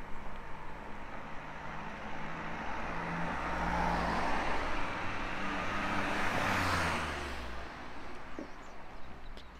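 A car driving past, its engine and tyre noise swelling to a peak about six to seven seconds in, then fading away.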